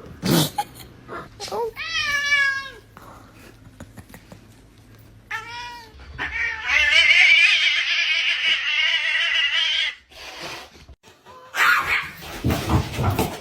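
A cat meowing: two drawn-out meows, then a longer, louder yowl lasting about four seconds.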